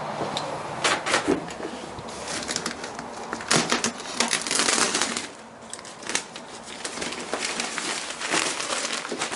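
Plastic bag around a compressed bale of pine wood shavings crinkling and rustling in irregular bursts as it is handled and pulled off the block.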